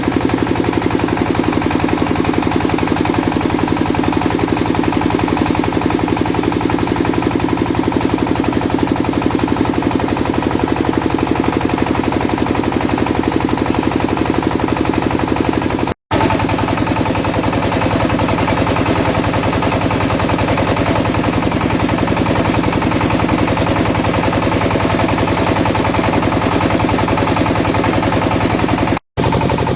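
Wood pellet press running, a rapid, continuous clatter of knocks over the steady hum of its motor and pulley drive. The sound cuts out abruptly for a moment twice, about halfway through and near the end.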